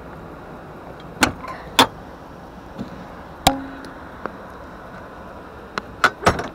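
Sharp clunks and knocks of a fold-down ladder or panel in a train sleeper compartment being pushed down: three single knocks spread through the first half, then a quick cluster near the end. Under them runs the steady rumble of the moving train.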